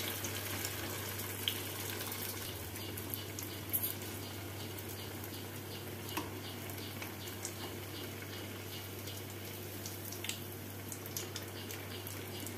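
Breaded bhetki fish fillets deep-frying in hot oil: a steady sizzle with scattered small crackles and pops.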